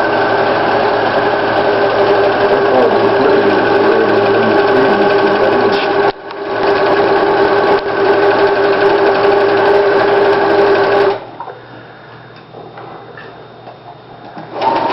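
Sewing machine running, stitching a decorative flower pattern. It pauses briefly about six seconds in and runs on, then stops for about four seconds and starts again near the end.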